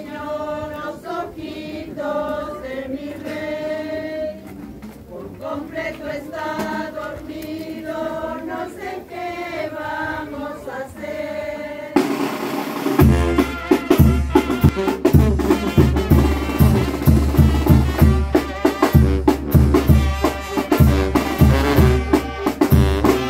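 A group of people singing a slow Christmas carol in unison for about the first half; then, after an abrupt cut, a louder band takes over with a steady heavy bass drum and crashing percussion.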